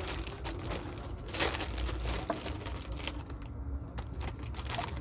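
Light rustling with scattered small clicks and knocks, one sharper click at the very start and another about one and a half seconds in.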